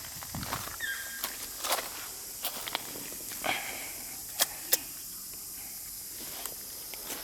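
Light rustling with scattered sharp clicks, two louder ones close together a little past the middle, and a short high squeak about a second in.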